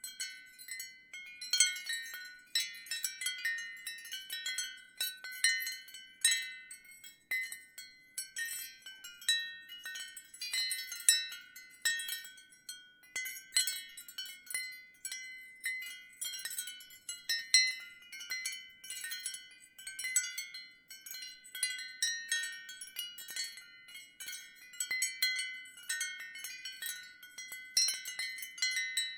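Ceramic wind chime clinking irregularly in the wind, a steady jumble of short, high, overlapping ringing notes.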